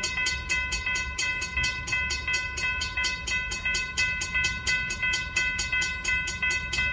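Railroad grade-crossing warning bell ringing steadily and rapidly, about five strikes a second, over a low rumble.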